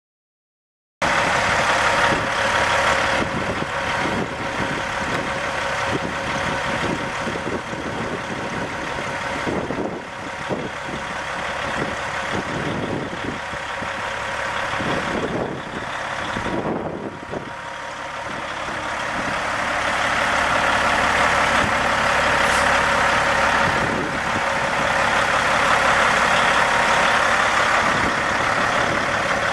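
Caterpillar 3406 14.6-litre inline-six diesel in a 1996 Peterbilt 379 semi tractor idling steadily, with a steady whine over the engine's run. It starts about a second in and gets louder past the middle.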